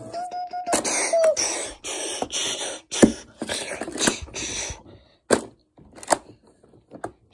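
A person making breathy hissing and puffing mouth sound effects, about six bursts in a row with a short voiced hum near the start. These are followed by three sharp taps in the last two seconds.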